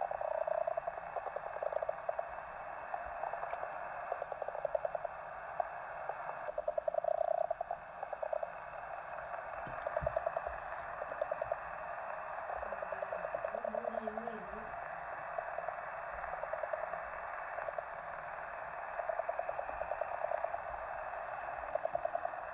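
Shortwave radio audio received in upper sideband on 3164 kHz: a band-limited hiss of static carrying a rapid clicking crackle that swells and fades in bursts, the unidentified signal known as XC, 'The Crackle'. A brief warbling tone sounds about two thirds of the way through.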